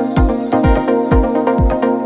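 Background electronic dance music: a steady kick drum about twice a second under sustained synth chords.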